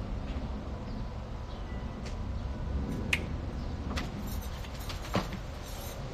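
Steady low outdoor rumble picked up by a phone's microphone, with a few sharp clicks or taps about three, four and five seconds in.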